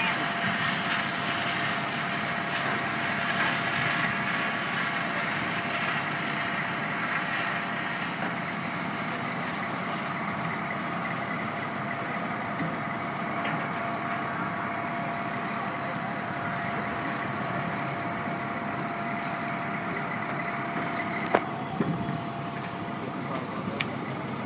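Fire ladder truck's diesel engine running steadily while it drives the water stream from the raised aerial ladder, with a steady whine over the engine and hiss. A sharp knock near the end.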